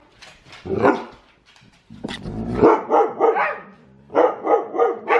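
Dog barking: a single bark about a second in, a low growly rumble around two seconds, then quick runs of short barks, about three a second, the barking that starts the huskies' group howl.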